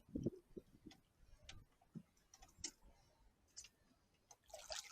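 Faint, scattered clicks and soft knocks at irregular intervals, with a short burst of rustling noise near the end; the sounds of hands working on hardware.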